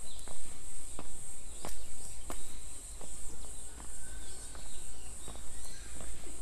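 Steady high-pitched insect chirring, with irregular sharp taps and a few faint bird-like chirps over it.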